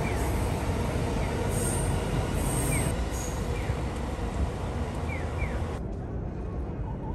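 Heavy rumble of a train running on an elevated railway above a city street, with brief high wheel squeals and a few short chirps. About six seconds in, the sound cuts to a quieter, duller city ambience.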